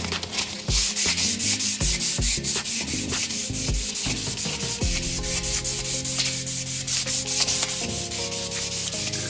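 A painted metal bullbar being wet sanded with 600-grit wet paper: quick, even back-and-forth rubbing strokes.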